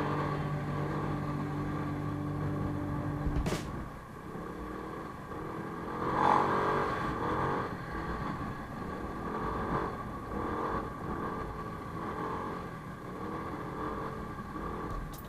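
Yamaha NMAX scooter's single-cylinder engine idling steadily, cut off with a click about three and a half seconds in; quieter, mixed background sounds follow.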